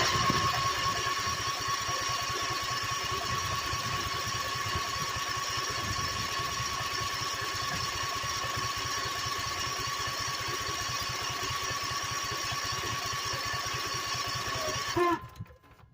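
Husqvarna two-stroke chainsaw engine running steadily on its first start after a carburetor cleaning, a little louder in the first second, then dying suddenly near the end.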